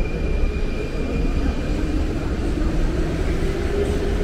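Metro train running with a loud low rumble, a motor whine rising slowly in pitch from about a second and a half in as it picks up speed, and a steady high tone that fades out around two seconds in.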